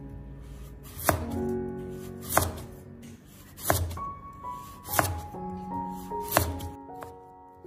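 Kitchen knife slicing a peeled carrot into thin slices on a wooden cutting board: five crisp chops, evenly spaced about a second and a half apart.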